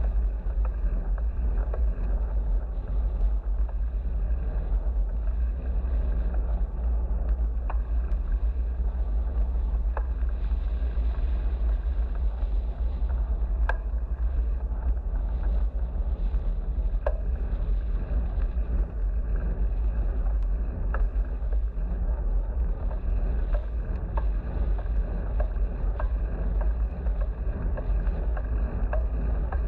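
Wind buffeting an action camera's microphone while riding a bicycle: a steady low rumble mixed with tyre and road noise, broken by a few light ticks.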